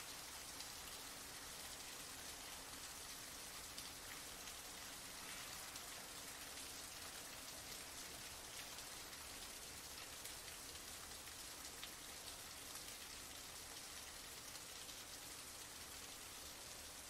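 Heavy rain falling, a steady even hiss with individual drops ticking through it.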